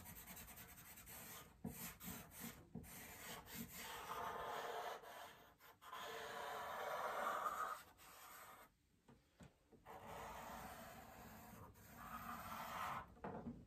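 Charcoal pencil held on its side scratching across drawing paper in shading strokes: a soft, dry rubbing hiss that comes in spells, loudest about six to seven seconds in, with a short pause around nine seconds.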